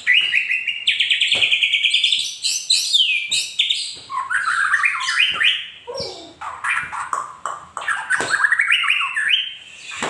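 White-rumped shama (murai batu) singing a loud, varied song: a fast run of repeated notes for the first couple of seconds, then a string of changing rising and falling phrases and trills.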